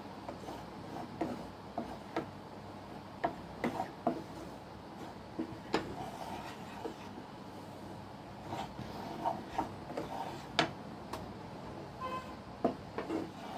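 Wooden spatula scraping and knocking against a nonstick kadai as dry gram flour is stirred and roasted: irregular scrapes with light taps at uneven intervals.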